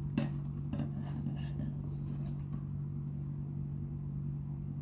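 A steady low hum, with a few small clicks and rubs in the first half as the plastic adjustable spray nozzle of a foam cannon is handled and turned.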